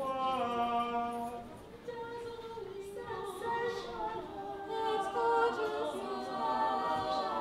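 A group of stage performers singing a song together, with long held notes.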